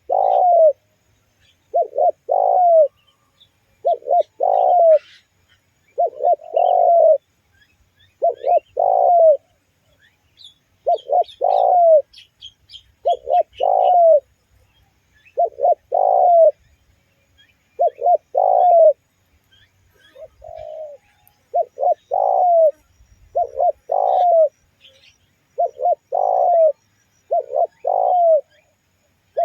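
Spotted dove (tekukur) cooing over and over, about every two seconds: each phrase is two or three short notes, then a longer falling coo. Faint chirps of small birds sound behind it.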